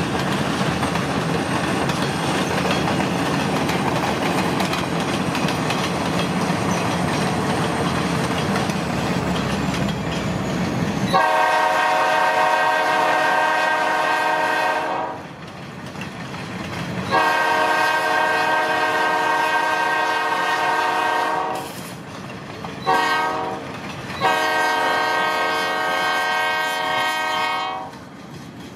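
Air horn of an EMD SD40-2 diesel locomotive sounding the grade-crossing signal: two long blasts, one short and one long, starting about 11 seconds in. Before the horn there is steady rumbling road and train noise from a car driving alongside.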